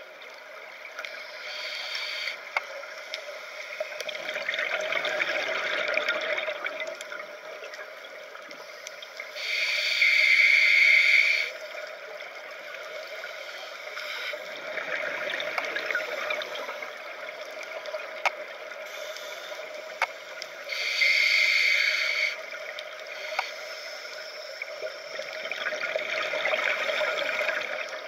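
Scuba regulator breathing heard underwater: two loud, hissing inhales about eleven seconds apart, each followed a few seconds later by the longer bubbling of exhaled air, over a faint steady hum.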